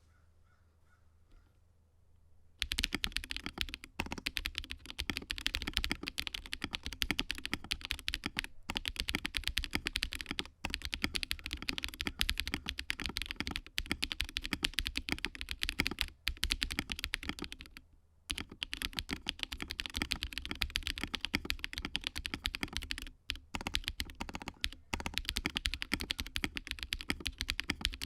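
Custom 60% mechanical keyboard with KTT Rose linear switches and PBT Cherry-profile keycaps in a gummy O-ring-mounted plastic case, being typed on fast and continuously. The typing starts about two and a half seconds in and stops briefly a few times.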